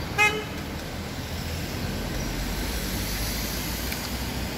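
Steady street traffic noise with a low rumble, and one short beep just after the start.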